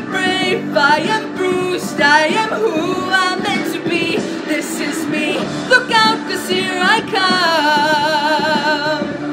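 A woman singing with strong vibrato, in short phrases that end on a long held note near the end.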